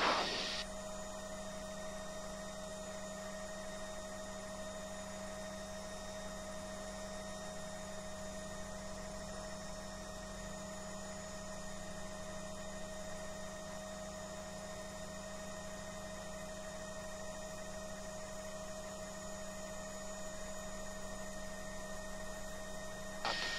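Bell 505 helicopter's cabin noise heard over the cockpit intercom during takeoff: a steady hum with several fixed whining tones and no change in pitch. A louder rush cuts off about half a second in and returns just before the end.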